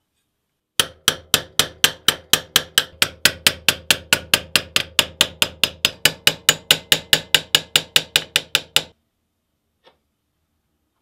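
A hammer striking metal in a quick, even run of about thirty blows, roughly four a second, each with a short ring. The run starts about a second in and stops after about eight seconds.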